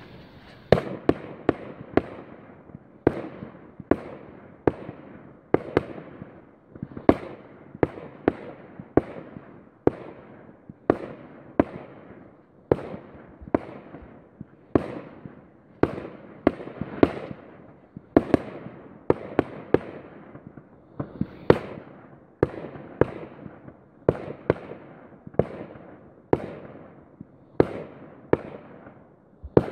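Fireworks display going off in quick succession: a steady barrage of sharp bangs, about one to two a second, each trailing off in echo.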